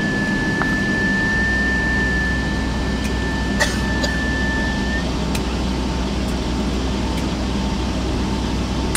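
Steady cabin noise of a Boeing 757-200 taxiing: jet engines at idle under the hiss of the cabin air. A high steady whine stops about halfway through, and there is one brief click a little before it stops.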